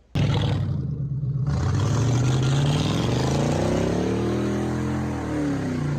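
A car engine running loud and revving, its pitch climbing slowly and then dropping back, cutting in abruptly.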